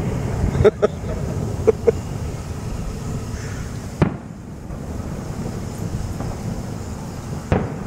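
Fireworks going off: several sharp bangs and pops of aerial shells, the loudest within the first second, another clear report about four seconds in and one more near the end, over a steady low rumble of wind on the microphone.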